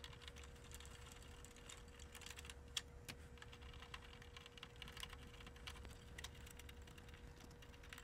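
Faint, scattered light clicks and ticks of a Phillips screwdriver backing small screws out of a sheet-metal bracket and of the loosened metal parts being handled, over a faint steady hum.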